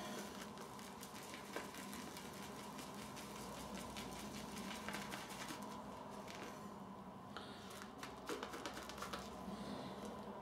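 Shaving brush working a lather of Wickhams 1912 Scottish Heather shaving soap, a faint, continuous wet swishing and fine crackling as water is worked in bit by bit.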